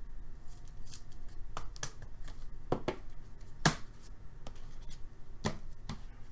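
Trading cards and a clear rigid plastic card holder being handled on a table: a string of scattered clicks and taps, the sharpest a bit over three and a half seconds in.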